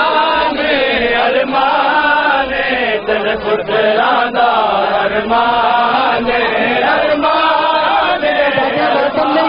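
Large crowd of men chanting together loudly in a Shia mourning (matam) chant, many voices rising and falling in pitch as one.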